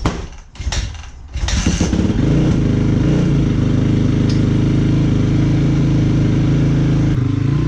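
Honda dirt bike engine being started: a few knocks, then it catches about a second and a half in and runs at a steady idle.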